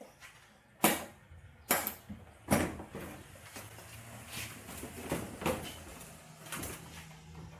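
Bumper cover being released from its quick-release fasteners. Three sharp snaps come a little under a second apart, followed by rustling and scraping of the cover as it is handled, with a few smaller clicks.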